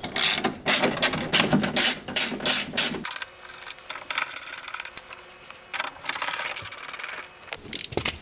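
Socket ratchet with an 11 mm socket clicking as it backs off the side mirror's mounting nuts: rapid clicking for about three seconds, then softer, intermittent clicks.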